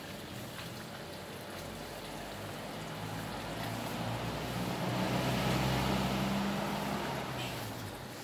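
A motor's low, steady hum that grows louder about halfway through and fades near the end, with a hiss over it.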